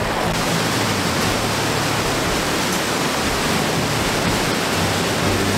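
Steady rush of falling water from Zapata Falls and its rocky mountain creek.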